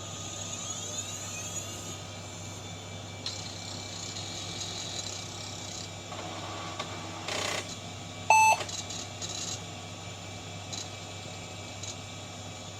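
Steady hum and fan noise of a running computer, with a short rustle about seven seconds in and then one short, clear beep from the PC speaker, a single power-on self-test beep.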